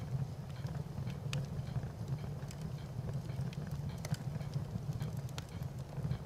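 Wood fire crackling: irregular sharp pops and snaps over a steady low rumble of the flames.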